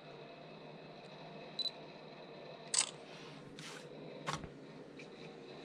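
Handheld digital camera taking photos: a short high beep about a second and a half in, then a sharp shutter click, a brief rustle and a second click.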